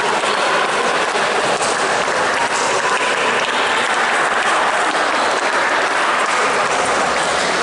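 Steady applause from spectators clapping at the end of a basketball game.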